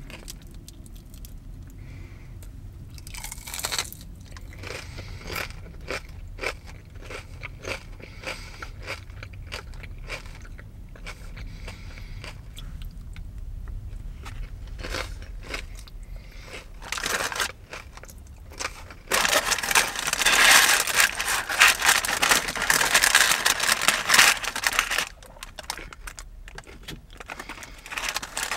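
Close-up crunching and chewing of a battered, fried onion ring: scattered crisp bites and chews, then a dense, loud spell of crunching about two-thirds of the way through.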